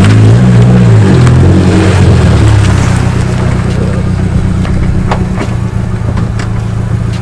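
Car engine revving up and down over the first couple of seconds, then running at a steady pitch.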